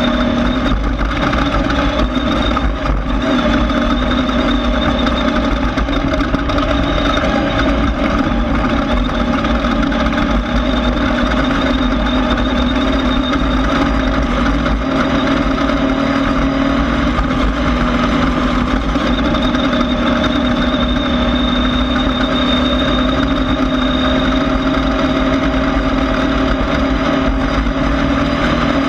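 Class 1600 off-road race car's air-cooled Volkswagen 1600 engine running loud and steady at a nearly constant pitch, with a dense rush of noise under it.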